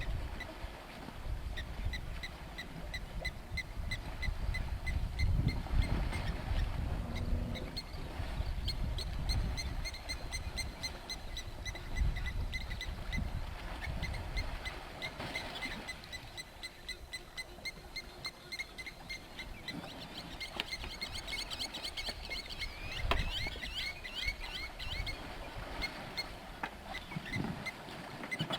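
Outdoor ambience: short high chirps repeat about twice a second, from a small calling animal, and thicken into a busier chatter of calls after about twenty seconds, over a low rumble.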